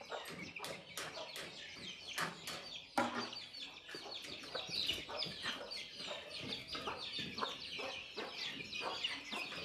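Chickens clucking, with small chicks peeping in quick, high calls, and one sharp knock about three seconds in.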